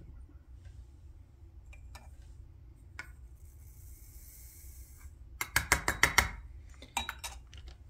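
A charge of Varget rifle powder is poured from a scale pan into a cartridge case, heard as a brief soft hiss of granules. About two seconds later comes a quick run of sharp clicks and taps as the pan and case are handled, with a few more near the end.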